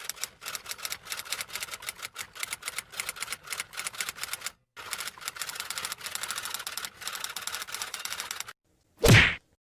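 Typewriter sound effect: rapid, uneven keystroke clicks, pausing briefly about halfway, then a single loud, short sound near the end.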